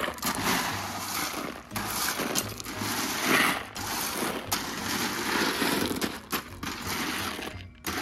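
Small rocks being spread with a garden rake: gravel scraping and rattling in repeated uneven strokes.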